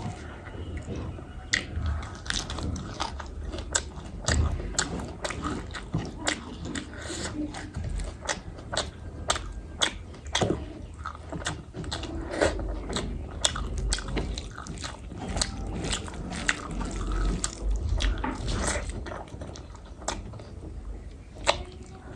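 Close-up sounds of a person eating: chewing, biting and wet mouth clicks with small crunches, as a long irregular run of short sharp ticks.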